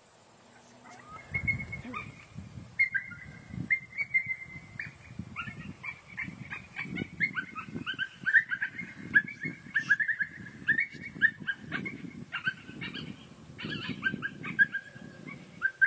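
Coyotes yipping and barking: a rapid, ragged chorus of short, high calls, many dropping in pitch, starting about a second in and growing busier.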